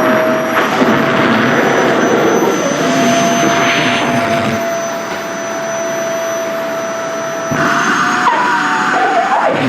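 SHARP EC-KP7F-A vacuum cleaner running with a steady whine over the rush of air. Its air noise thins and swells as the nozzle draws in skirt fabric, and near the end the whine wavers in pitch as the suction is choked.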